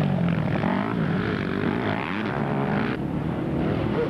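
Several enduro motorcycle engines revving hard and unevenly as the bikes climb a muddy bank, their pitch rising and falling with the throttle.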